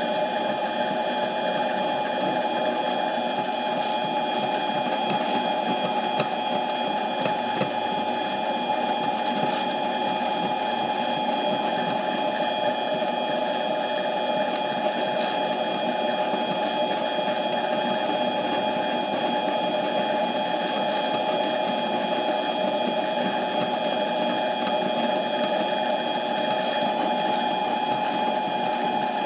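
Harbor Freight mini lathe running steadily with a steady whine from its motor and gear train, turning a camshaft between centres. A few faint clicks sound here and there over it.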